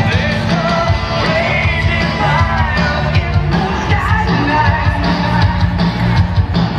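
Loud rock music with a singing, shouting vocal over a heavy, steady beat.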